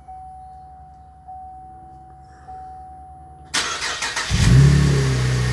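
A 2014 Chevrolet Camaro's 3.6-litre V6 being started. A steady electronic warning chime sounds from the car first; about three and a half seconds in, the starter cranks briefly and the engine catches with a loud rev flare, then eases back toward idle.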